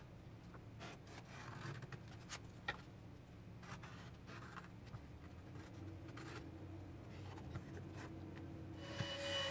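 Pencil lead scratching faintly on plywood as it traces around an MDF template, over a steady low hum. Near the end a steady ringing tone sets in.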